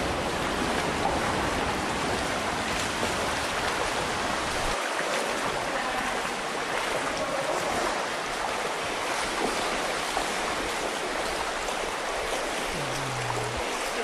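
Steady rush of flowing water, a continuous even hiss. A low rumble underneath drops out abruptly about five seconds in.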